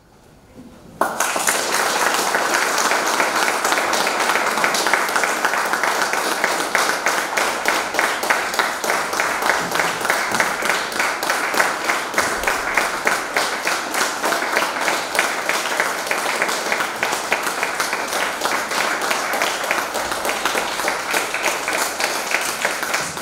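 After a brief hush, an audience starts applauding about a second in and keeps clapping steadily.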